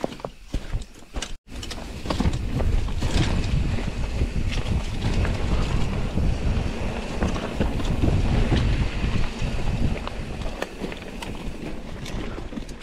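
Wind buffeting the camera microphone during a mountain-bike ride, a loud low rush with many scattered sharp knocks and rattles. It cuts out completely for a moment about a second and a half in.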